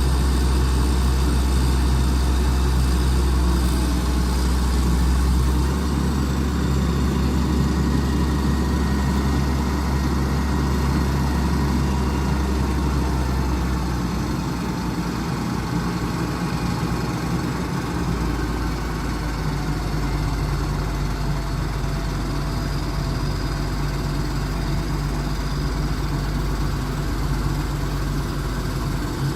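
Terex A600 60-ton crane's diesel engine running steadily, its low note shifting a few times.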